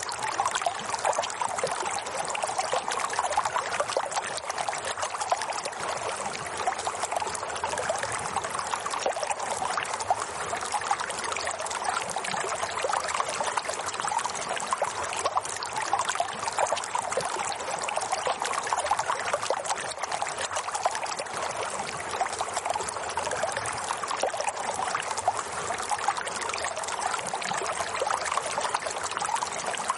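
Flowing water: a stream running and babbling steadily, with a dense trickling splash.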